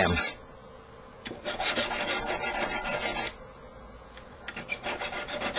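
Small silver sheet rubbed with emery paper against a wooden bench peg: two spells of scratchy back-and-forth rubbing, each about two seconds long. The surface is being cleaned and flattened before the next soldering.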